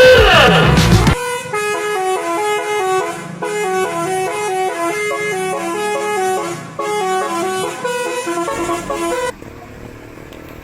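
A loud truck horn blast that drops in pitch as it cuts off about a second in, followed by a musical horn playing a quick tune of stepping notes for about eight seconds, which stops near the end and leaves quieter traffic noise.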